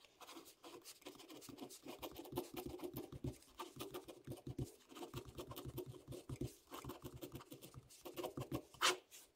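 Pen writing block capital letters on grid paper: quick scratchy strokes, with a sharper tap near the end.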